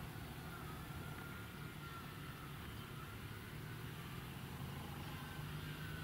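A distant engine running: a faint, steady low hum with a thin, slightly wavering whine above it.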